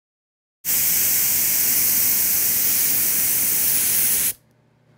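A steady, high hiss that starts abruptly about half a second in and cuts off suddenly a little before the end, leaving a faint low hum.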